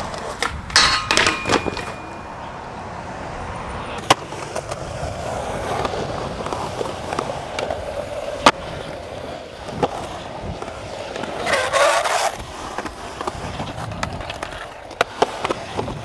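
Skateboard wheels rolling on concrete, broken by several sharp cracks of tail pops and board landings. Two longer harsh scrapes, just after the start and about twelve seconds in, are grinds on a rail or coping.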